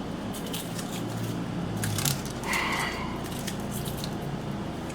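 Scissors snipping and handling silicone self-fusing repair tape: a scatter of small clicks, with a brief rustle about two and a half seconds in, over a low steady hum.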